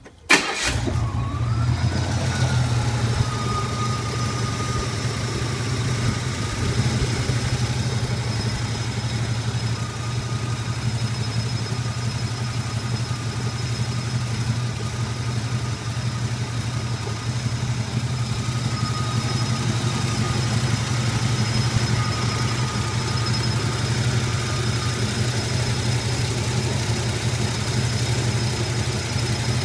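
1981 Pontiac Turbo Trans Am's turbocharged 301 V8 starting hot, catching almost at once, then idling roughly, with a slight whistle over it.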